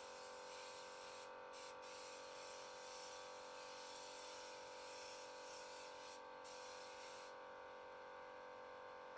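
Near silence: a faint steady hiss with a low electrical hum.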